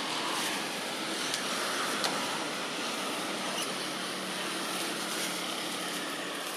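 Steady outdoor background noise with a faint low hum under it, and a couple of small clicks about a second or two in.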